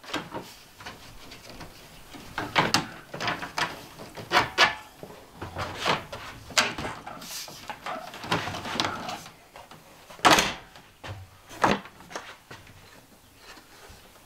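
Irregular knocks, clicks and clunks of a Norcold RV refrigerator's door and trim frame being handled and pushed into place in its cabinet, with two louder clunks in the second half as a door is worked open.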